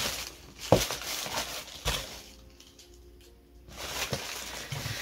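Packaging rustling as a cardboard subscription box and a plastic bag of hair products are handled, with two sharp knocks, one under a second in and another about two seconds in.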